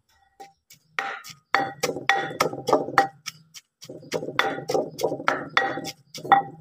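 Wooden pestle pounding fish flesh, chillies, shallots and garlic in an earthenware mortar: a run of dull knocks with a light clink, about three a second, with a brief pause near the middle.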